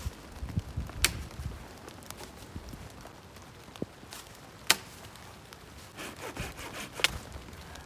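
Wood being worked by hand: rubbing and scraping with low knocks, and three sharp cracks of wood, the loudest about halfway through.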